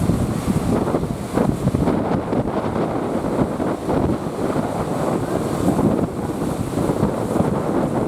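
Strong wind rushing over the microphone at sea, with waves washing underneath; the level rises and falls unevenly with the gusts.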